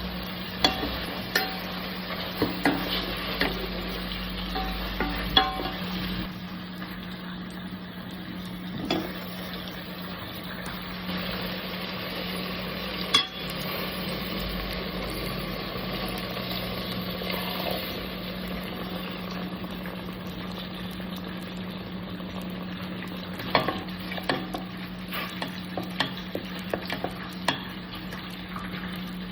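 Food frying and sizzling in a pan, with scattered clinks and scrapes of a utensil against the pan as it is stirred, over a steady low hum.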